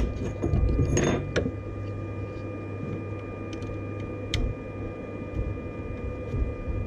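Small metal clicks and a brief rattle of an Allen key working the 3 mm screws on a 3D printer's print head, the loudest about a second in, with a sharp click near the middle. A steady hum with a faint whine runs underneath.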